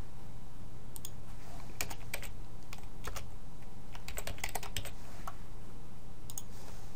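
Typing on a computer keyboard: irregular keystrokes, with a quick run of several keys about four to five seconds in, over a steady low hum.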